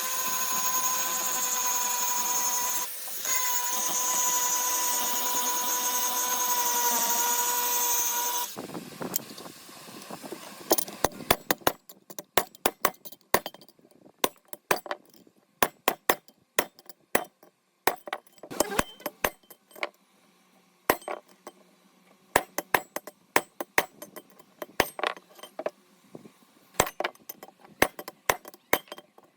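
An electric power tool runs with a steady high whine, then is switched off about eight seconds in and winds down. After that come scattered sharp metal clinks and taps, like parts being handled and set down.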